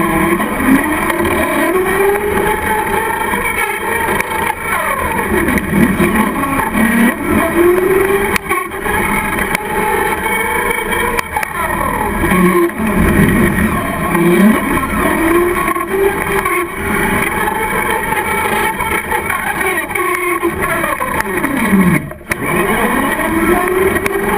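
Traxxas Slash RC truck's motor, heard from on board, whining up and down in pitch again and again as the truck speeds up and slows through turns.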